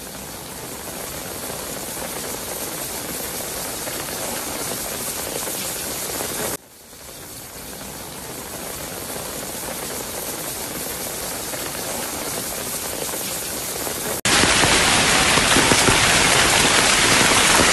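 Heavy rain falling, a steady hiss. It dips briefly about a third of the way through and becomes louder and fuller near the end.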